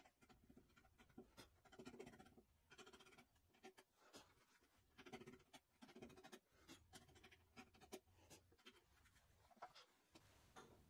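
Faint, repeated scraping strokes of a bench chisel paring wood out of a hinge mortise by hand, with small sharp clicks as chips break away.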